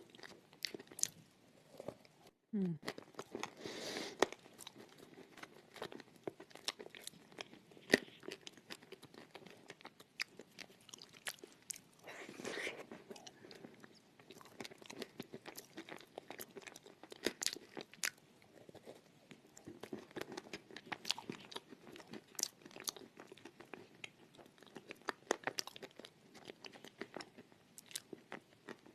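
Close-miked biting and chewing of edible chalk: irregular crisp crunches and crackles throughout, with a few longer soft grinding stretches between them.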